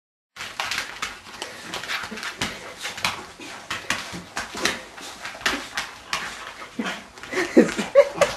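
Cocker spaniel whimpering, with short whines clustered near the end, over quick rustling and scuffing.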